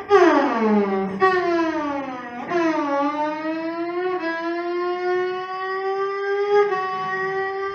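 Bowed cello sliding in pitch: three quick downward slides, then a long held note rising slowly, played as a siren imitation.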